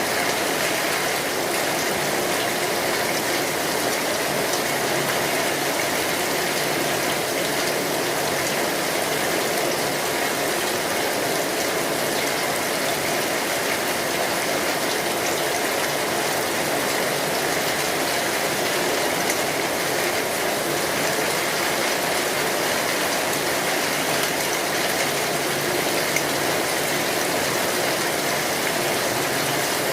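Steady, dense rain drumming on a metal roof, with a wood fire crackling under it.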